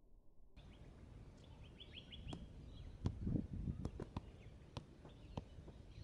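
A football being juggled: a string of sharp taps as the ball is struck by the feet, some seven or eight at uneven intervals. Birds chirp in the background, most clearly a little over a second in, over a low rumble.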